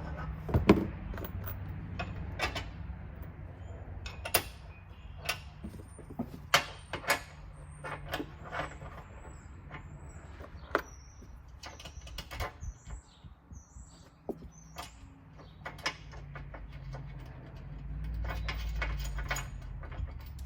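Stainless steel bolts, washers and nylock nuts clinking and tapping against a steel door hinge as they are fitted and threaded by hand: a string of sharp, irregular metal clicks, some with a short high ring, and a low rumble near the end.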